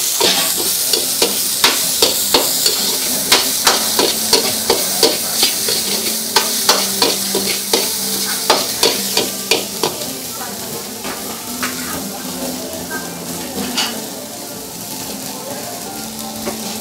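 Chili and minced lemongrass sizzling in oil in a steel wok while a metal ladle stirs, scraping and clacking against the pan two or three times a second. Both the sizzle and the clacks thin out about halfway through.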